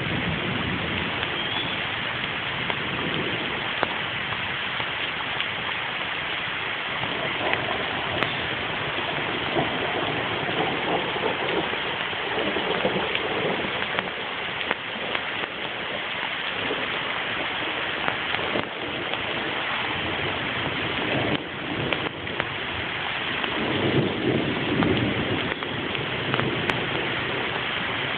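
Steady rain falling, with low rumbles of distant thunder swelling now and then, the strongest about three-quarters of the way through.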